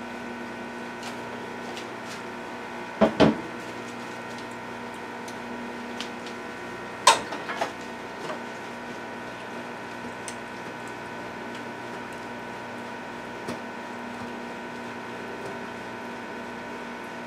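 A metal cup knocking against the rim of an electric rice cooker's pot as catfish pieces are tipped into the stew: two sharp knocks about three seconds in and two more about seven seconds in, over a steady hum.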